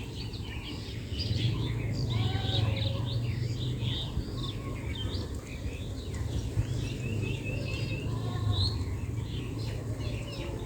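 Several small birds chirping and twittering, with short calls overlapping throughout and a quick run of repeated notes about two-thirds of the way in, over a low steady hum.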